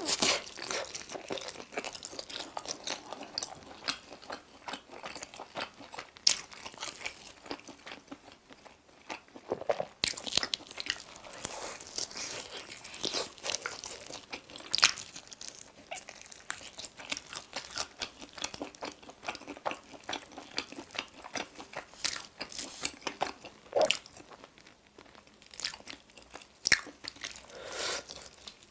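Biting and chewing of sauce-coated spicy chicken wings and meat being torn from the bone, heard as irregular sharp crunches and clicks throughout.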